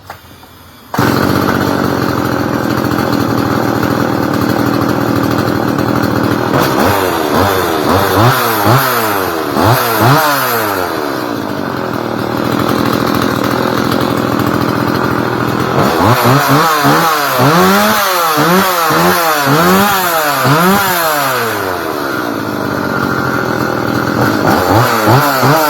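Stihl MS180 two-stroke chainsaw engine, running with no chain on the bar. It comes in abruptly about a second in and runs steadily, with two spells of quick repeated revving where the pitch rises and falls.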